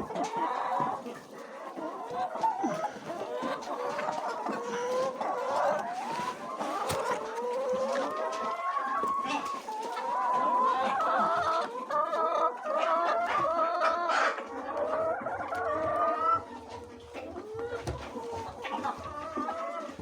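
A flock of laying hens clucking and calling over one another in the hen house, many birds at once, with scattered small knocks.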